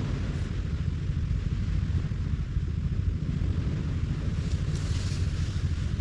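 Wind buffeting the microphone in a steady low rumble, with a beach surf hiss that swells about five seconds in.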